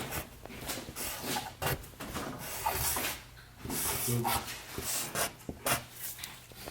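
Irregular clicks, knocks and scraping from hand work on a car in a garage, over a faint steady low hum.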